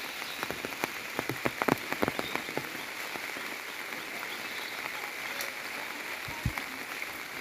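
Rain pattering and dripping: a steady hiss with many separate drop ticks, thickest in the first few seconds.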